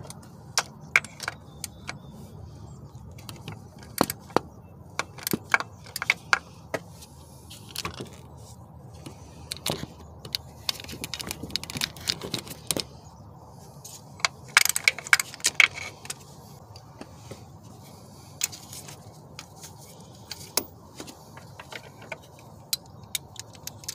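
Metal hand tools clinking and clattering in scattered bursts of sharp clicks: a socket and ratchet being picked up, handled and fitted.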